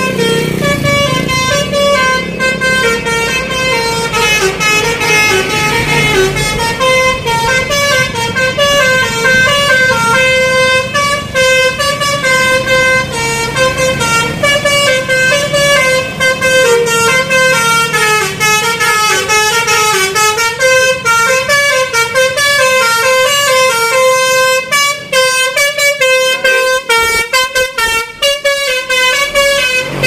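Tour bus's 'telolet basuri' musical horn playing a fast, flute-like melody of quick stepped notes, sounding the whole time as the bus approaches and passes, with the bus engine rumbling underneath.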